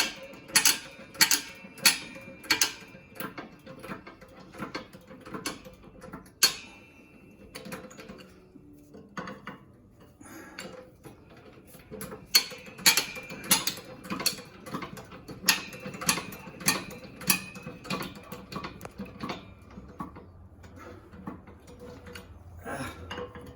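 Hydraulic bottle jack of a shop press being pumped by hand to press out a wheel bearing, a sharp metallic click with each stroke, roughly one and a half strokes a second. The clicking comes in two runs, with softer rattling in between.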